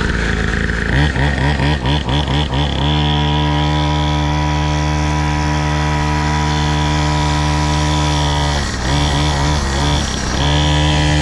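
Small engine of a children's mini dirt bike revving up and down in quick blips, then held at high revs in a steady note for several seconds as the rear wheel spins in a smoking burnout. About nine seconds in the revs waver briefly before settling high again.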